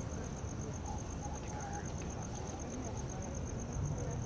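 A cricket chirping steadily in a high, even pulse of about eight beats a second, over a low steady rumble and faint distant voices.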